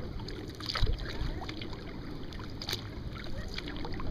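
Kayak paddling: a Werner paddle blade dipping and lifting, water splashing and dripping off the blade in scattered small splashes. Wind noise on the microphone runs underneath.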